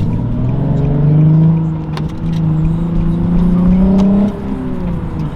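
Nissan 370Z's 3.7-litre V6 engine and exhaust running under way: the engine note climbs in the first second, holds steady, rises a little more, then drops a little past four seconds in as the revs fall.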